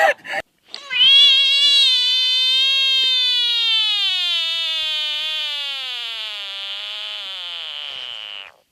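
One long animal call held for about seven and a half seconds, slowly falling in pitch with a slight waver, then cutting off suddenly.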